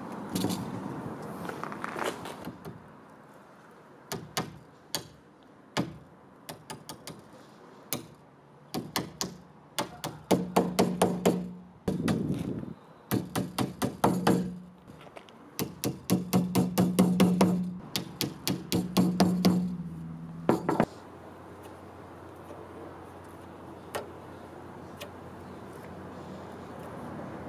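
Small hammer tapping a thin wooden strip onto the edge of a chest of drawers' wooden top: runs of quick light taps, several a second. Some runs carry a low ringing hum, and the tapping stops about three-quarters of the way through.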